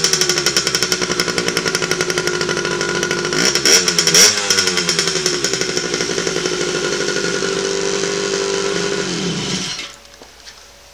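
The 1974 Aermacchi Harley-Davidson X-90's freshly rebuilt two-stroke single running on the stand. It is revved briefly at the start and again a few times around four seconds in, then runs steadily and winds down and stops as it is shut off near the end.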